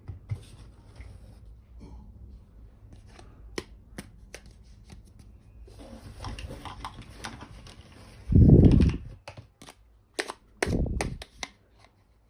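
Small plastic toy kitchen pieces being handled, with scattered light clicks and taps. Two loud dull thumps come about 8 and 11 seconds in.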